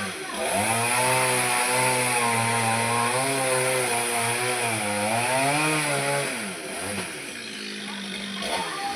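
Chainsaw engine running at high speed, its pitch dipping briefly a couple of times and dropping lower and quieter near the end.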